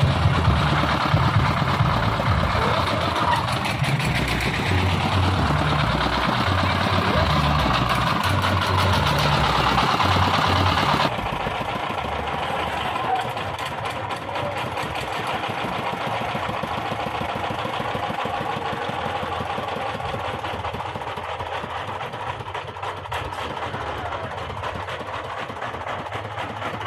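Stationary engine that drives a swinging-boat fairground ride, running steadily. For the first eleven seconds it is under louder fairground noise with a low, shifting thump. After an abrupt change it is heard on its own, quieter and even.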